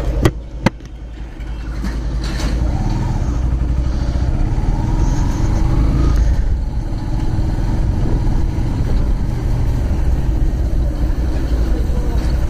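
Yamaha motorcycle riding along, its engine running under a steady low rumble of wind on the microphone. Two sharp knocks near the start come from a hand handling the phone.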